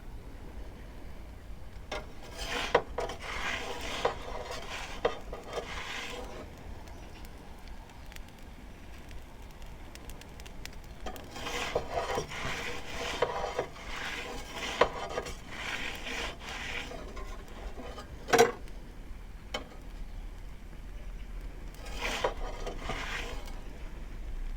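A pizza peel scraping and rubbing across the pizza stone as the pizza is turned in the oven, in several separate bouts of scraping. A single sharp knock comes about eighteen seconds in.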